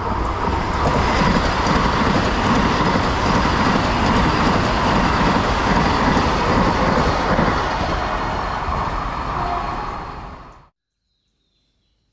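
Vande Bharat Express electric trainset passing close at speed: a loud, steady rush of wheels on rail and air with a fast low rumble, which cuts off suddenly near the end.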